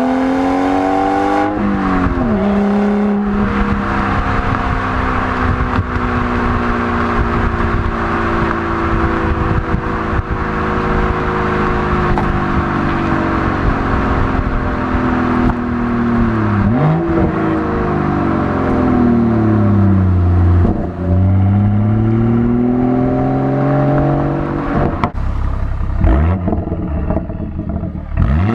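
BMW 440i's B58 turbocharged inline-six, running through an M Performance Power and Sound Kit exhaust, pulling under throttle. Its pitch climbs, drops sharply about two seconds in, sags slowly for a long stretch, then falls and climbs again several times near the end.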